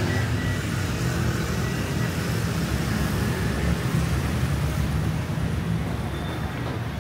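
Road traffic passing on a busy street: a steady, continuous low rumble of motor vehicles.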